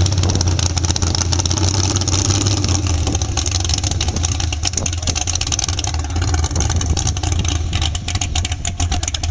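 Newly installed 468 big-block Chevy V8 in a lifted mud-racing truck running at low speed as the truck rolls along: a loud, steady, deep rumble with no big revs.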